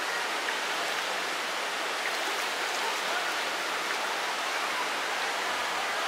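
Flowing water rushing steadily, an even noise that holds at one level throughout.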